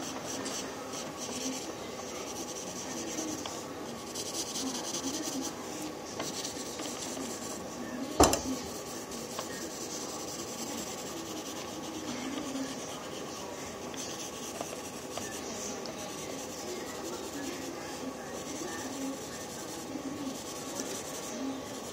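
Pencil scratching on paper while a face is sketched, coming in short runs of strokes. One sharp knock about eight seconds in.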